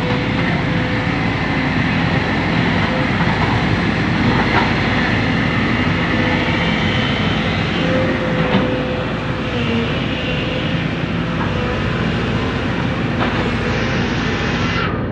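Hydraulic excavator running steadily under load while digging mud, its diesel engine and hydraulics making a faint wavering whine over the engine noise, with a few sharp metallic clanks.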